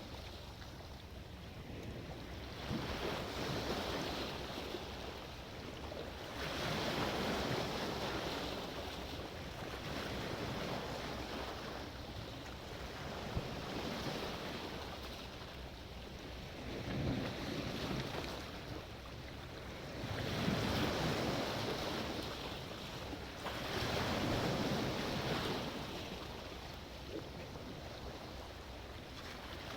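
Sea waves breaking and washing in, the surf swelling and falling away every three to four seconds.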